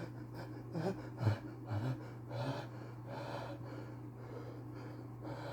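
A man's pre-sneeze hitching: three quick whiny gasps within about a second, then two longer breaths, as a sneeze builds without coming out.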